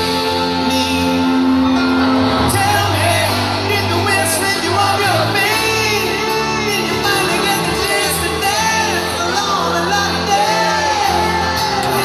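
A rock band playing live through a big PA, with piano, band backing and a singer's voice, heard from among the audience. Fans shout and whoop over the music.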